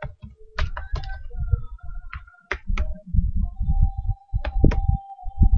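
Typing on a computer keyboard close to the microphone: a quick, irregular run of key clicks, each with a heavy low thud through the desk.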